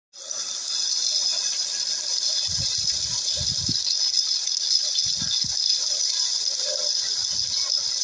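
Shallow stream water running over rocks, a steady hiss, with a few short low thumps partway through.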